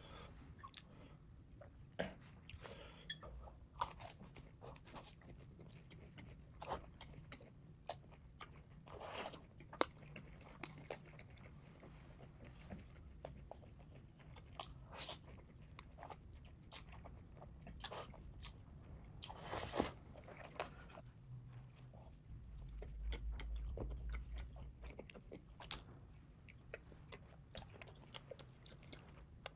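Close-up eating sounds: crunchy bites and chewing, a string of sharp, irregular crackles, sped up to double speed. A low rumble runs for a few seconds past the middle.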